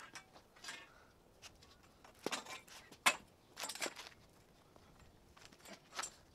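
Hand conduit bender working 7/8-inch 4130 chromoly steel tubing: a few faint, scattered clicks, creaks and scrapes of metal. The loudest come two to four seconds in and near the end.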